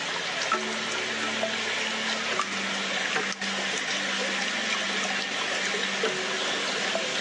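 Waterfall rushing: a steady, dense roar of falling and splashing water.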